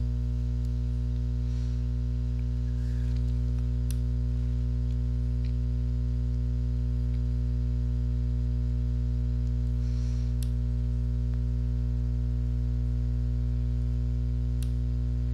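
Steady electrical mains hum with a buzz of evenly spaced overtones, unchanging throughout. A few faint clicks sound over it, about four seconds in, around ten seconds in and near the end.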